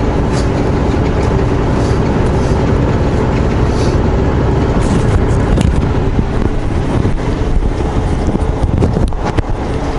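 Steady rumble inside a semi-truck's cab as it drives: diesel engine and tyre noise running evenly, with a few faint ticks.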